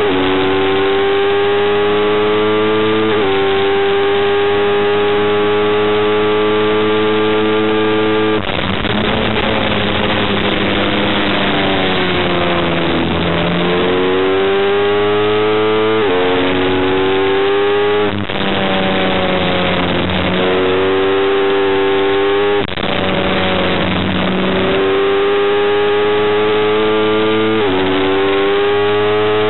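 Sport motorcycle engine heard onboard at racing speed, pulling hard through the gears: the pitch climbs in each gear and drops sharply at each upshift. Twice the pitch falls away as the bike slows and downshifts for corners, then it climbs again.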